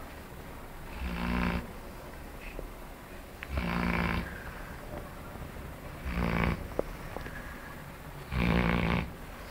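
Dog snoring in its sleep: four snores about two and a half seconds apart, each lasting about half a second.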